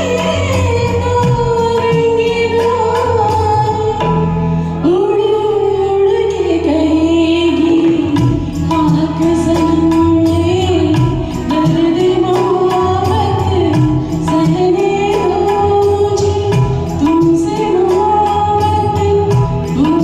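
A woman singing a slow Bollywood film song over a backing track, her held notes wavering with vibrato above steady bass and an even beat.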